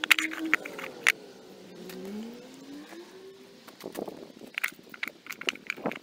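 Rocks set down on wooden boards, several sharp knocks in the first second and again in the last two seconds. In between, a car's engine is heard in the background, its pitch falling and then rising.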